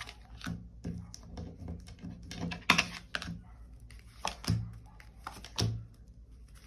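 Tarot cards being handled and laid down on a table: irregular light taps and clicks, a few with a duller thud.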